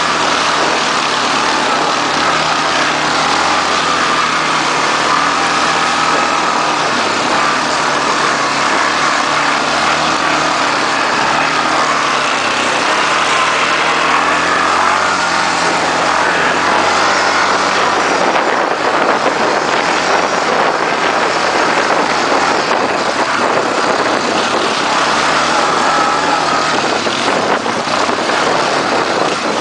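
Quad bike (ATV) engine running hard off-road, its pitch rising and falling with the throttle, over a steady rush of noise.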